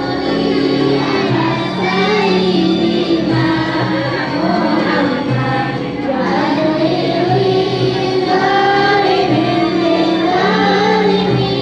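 A group of children singing sholawat, an Islamic devotional song, together in unison over a steady low backing.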